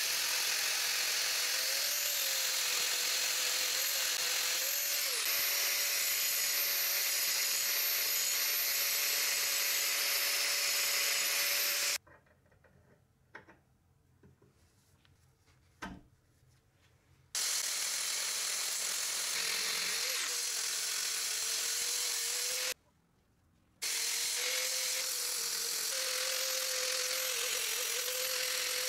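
Electric power tool motor running in three long stretches, its whine steady with slight wavers in pitch. It stops twice: for about five seconds near the middle, with a few small clicks, and briefly for about a second later on.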